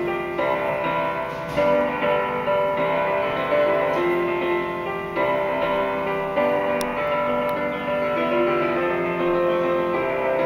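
Instrumental background music led by a keyboard melody, its held notes changing every second or so.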